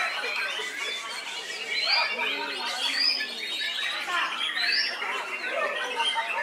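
White-rumped shama and other caged contest songbirds singing at once in a dense tangle of whistles and chatters, with a few sharp rising whistles standing out. A murmur of crowd voices runs underneath.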